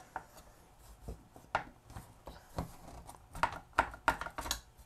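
Plastic housing of a timing light being worked apart by hand: scattered clicks, taps and scraping as the halves separate, the sharpest clicks in the second half.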